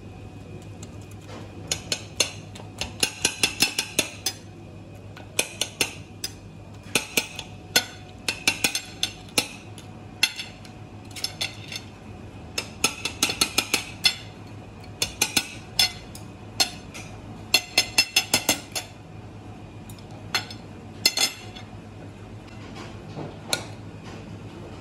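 Knife and fork clinking and scraping against a ceramic plate while cutting up and mashing food, in quick clusters of sharp ringing taps with short pauses between them.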